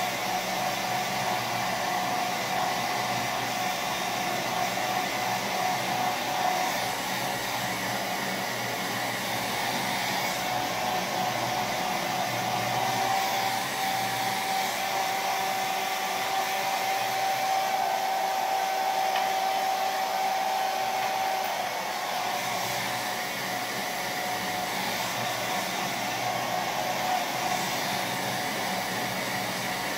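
Handheld hair dryer running steadily as it blows on hair, a rush of air with a steady motor whine.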